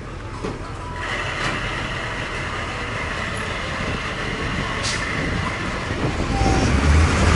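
Blue Bird All American bus's Caterpillar 3208 V8 diesel being cranked by its starter: a steady whine comes in about a second in. The engine fires and builds to a louder, deeper run near the end.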